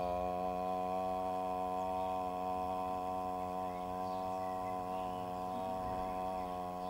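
One voice holding a single steady low chanted note, a qigong-style healing sound, sustained without a break and wavering slightly in pitch.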